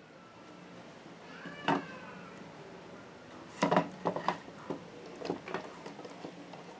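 A brief pitched squeal or cry about one and a half seconds in, then a series of sharp knocks and clicks, the loudest bunched together around the middle.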